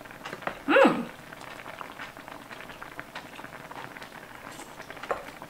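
Stew bubbling in an electric skillet, a steady soft popping hiss, with an appreciative hummed "mmm" about a second in and a single light click near the end.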